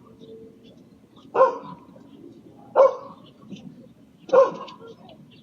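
A dog barking three times, about a second and a half apart.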